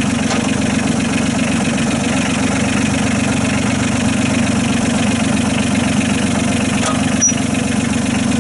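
Kubota B8200 tractor's three-cylinder diesel engine idling steadily, with one brief click near the end.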